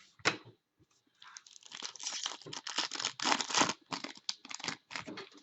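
Hockey card pack wrapper being torn open and crinkled by hand: a sharp snap just after the start, then a few seconds of dense crinkling and tearing.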